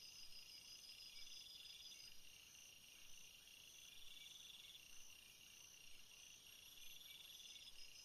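Faint night-time jungle insect chorus: several insects chirping at once in high, rapidly pulsed trills. The calls overlap, some steady and some coming in stretches of about a second.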